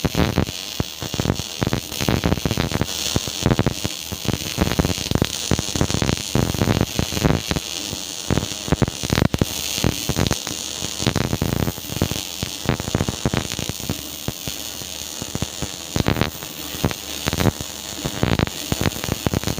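MIG welding arc crackling: a dense, irregular sputter of sharp pops over a steady hiss.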